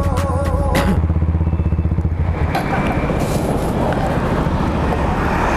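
Background music ends about a second in, then a motorcycle engine runs under way with road and wind noise; about halfway through the steady engine hum turns into a rougher rumble.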